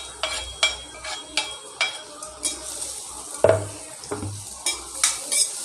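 A cooking utensil stirring freshly added chopped onions and garlic in hot sesame oil in an iron kadai: repeated scrapes and knocks against the pan over the sizzle of the oil, with one heavier knock about three and a half seconds in.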